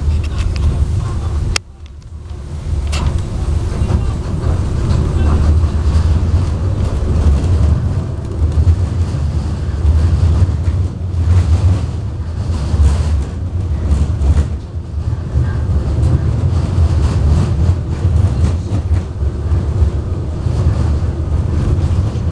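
Cabin noise inside a moving KTM-19 tram: a steady low rumble from the running gear and wheels on the rails. A sharp click about one and a half seconds in cuts the noise down briefly, and it then builds back up.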